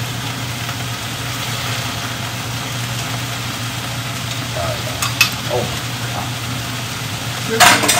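Water spinach sizzling as it is stir-fried in a wok, tongs turning it. A couple of short clicks come about five seconds in, and a brief loud clatter comes near the end.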